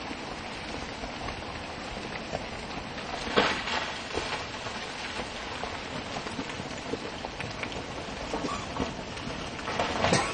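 Rockfall: loose rock and gravel pouring down a mountainside, heard as a steady crackling rattle. It swells louder twice, about a third of the way in and again near the end.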